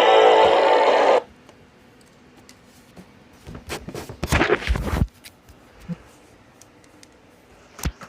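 Loud radio audio, hissy and static-like, cuts off abruptly about a second in. A few clicks follow, then a burst of rustling and knocking between about three and a half and five seconds in, and one more click near the end.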